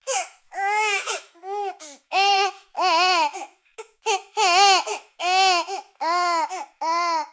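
A baby sobbing in a rapid string of about ten short, high-pitched cries, each wavering up and down in pitch, with brief catches of breath between them.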